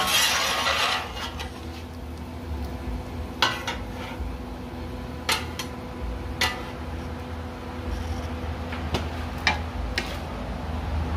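Metal spatulas scraping across a steel flat-top griddle and clinking against each other as bacon is scooped up. A longer scrape comes at the start, followed by a few separate sharp clinks.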